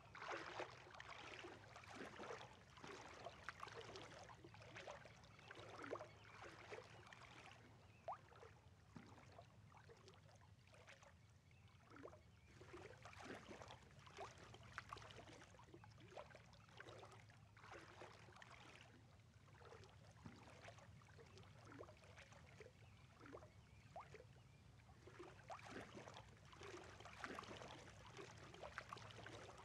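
Near silence: a faint steady low hum with soft, irregular clicks and crackles scattered through it.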